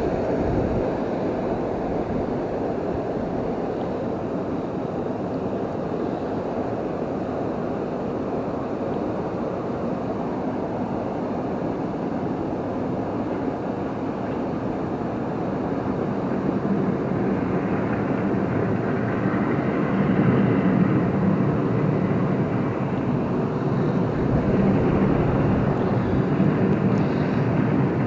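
Steady rushing roar of a waterfall and river current, growing somewhat louder with a deeper drone in the last third.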